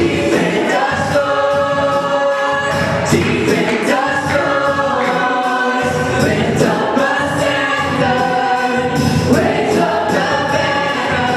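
Gospel choir of men's and women's voices singing through microphones, holding sustained notes.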